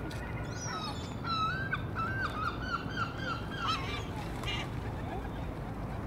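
A waterbird calling a rapid series of about eight short, evenly pitched notes, starting about a second in and lasting about two and a half seconds.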